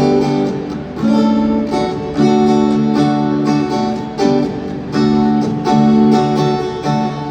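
Acoustic guitar strumming chords, each re-struck roughly once a second, as the instrumental intro of a live song amplified through a concert sound system.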